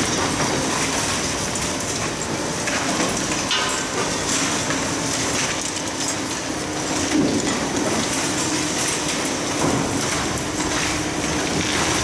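Hydraulic demolition excavators working on a reinforced-concrete building: a steady machine drone with continual crackling and clattering as concrete is crushed and rubble falls.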